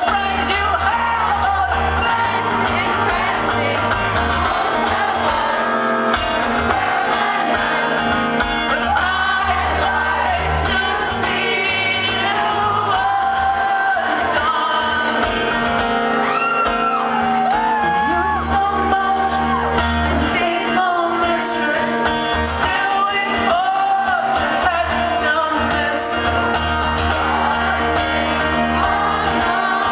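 Live concert sound recorded from the audience in a large hall: a male singer over a strummed acoustic guitar, with crowd voices shouting and singing along.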